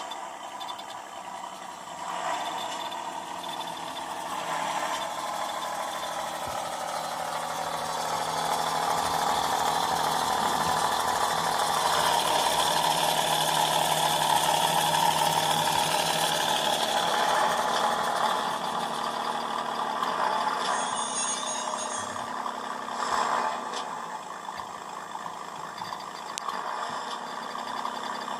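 Sound decoder in an Accucraft model of RGS Galloping Goose #6 playing a gasoline rail-truck engine through the model's speaker. The engine sound builds louder toward the middle, then eases off, with a few brief swells.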